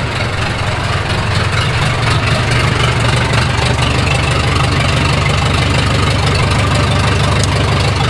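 Boom lift's engine running steadily after a jump-start from a pickup truck, with a strong low hum.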